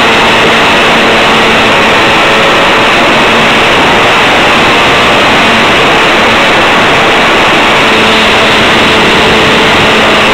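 Motor and propeller of a model motor glider running steadily, heard from a camera mounted on the plane, with loud wind rush over the microphone. A faint low steady hum sits under the noise.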